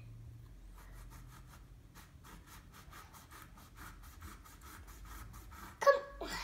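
Small kitchen knife sawing through a pear on a wooden cutting board: a quick run of soft scraping strokes, about five a second, ending in a brief louder sound near the end.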